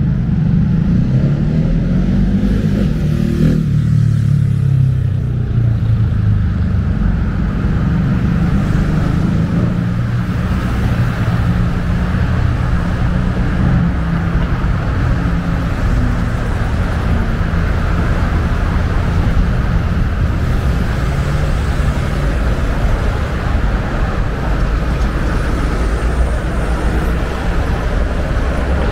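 City street traffic: motor vehicle engines running, with one close vehicle's engine note rising and falling in the first few seconds, then a steady rumble of traffic.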